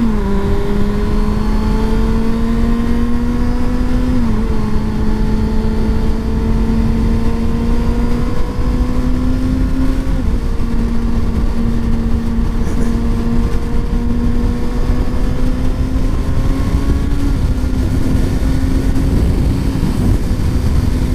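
Kawasaki Ninja ZX-6R inline-four engine pulling hard as the bike accelerates, heard over steady wind noise. Its pitch climbs slowly, then drops sharply at the start and again about 4, 10 and 17 seconds in as the rider shifts up through the gears.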